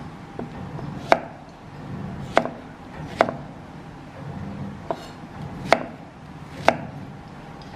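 Cleaver chopping red onion into wedges on a round wooden chopping board: irregular knocks of the blade on the wood, about a second apart, five loud and two softer.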